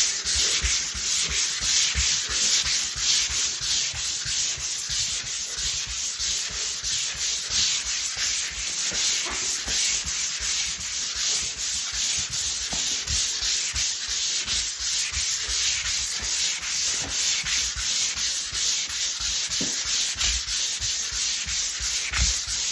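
Drywall being sanded by hand: sandpaper rasping over dried joint compound in quick, rhythmic back-and-forth strokes that continue without a break.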